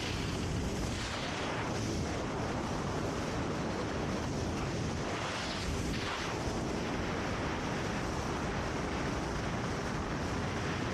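Boat under way at sea: wind buffeting the microphone over water rushing past the bow, with several brief splashes.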